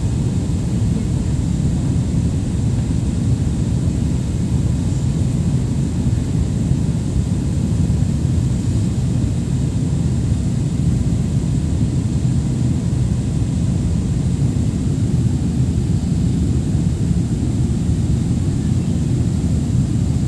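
Jet airliner cabin noise heard from a window seat: the engines and the airflow over the fuselage make a steady, even low rumble that does not change.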